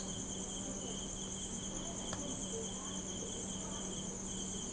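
Steady high-pitched, insect-like chirring over a low steady hum, with one faint click about two seconds in.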